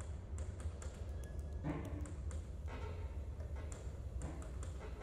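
Sparse, irregular clicks and taps over a steady low hum, with a brief low pitched sound about two seconds in: a quiet passage of a contemporary chamber piece for flute, bassoon, violin, cello and tape.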